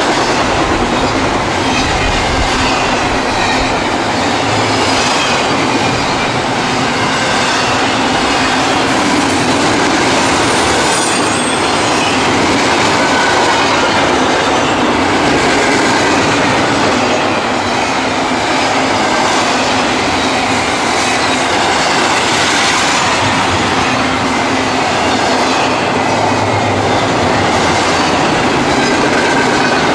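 Double-stack intermodal freight cars rolling steadily past at close range: a continuous rumble and clatter of steel wheels on rail, with faint, thin wheel squeals here and there.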